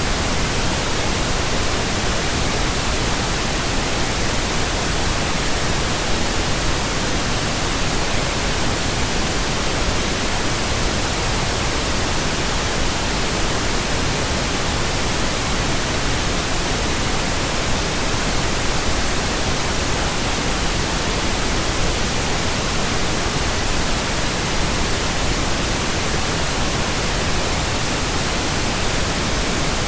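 Steady pink noise: an even, unchanging hiss spread across all pitches, with no breaks or variation.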